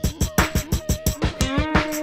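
Background music: a track with a quick, steady ticking beat and held synth-like tones, its deep bass dropped out.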